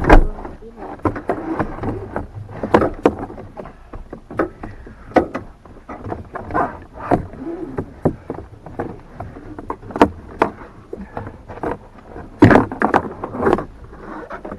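Irregular clicks, knocks and scraping of plastic interior trim and seat belt parts being handled and pried loose inside a car, with the loudest knocks right at the start and about two-thirds of the way through.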